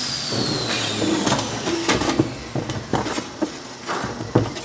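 Irregular light clicks and knocks of a small stainless steel sink being handled after welding. A high whine slides down in pitch and fades out in about the first second.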